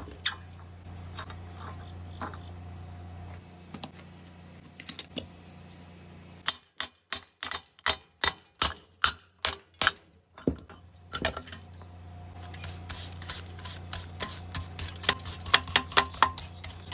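Hand tools working on a push-mower engine, metal clicking and clinking. Scattered taps come first, then about ten sharp clicks in a steady rhythm past the middle, and quick runs of clicking near the end, as the flywheel nut is worked loose.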